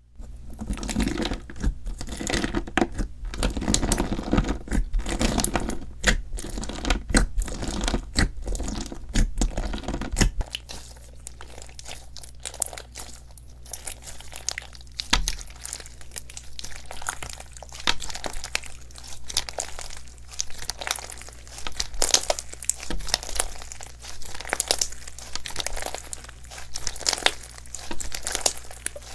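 Slime being squished and stretched by hand, giving a dense stream of crackles and pops, busiest in the first ten seconds or so and then sparser.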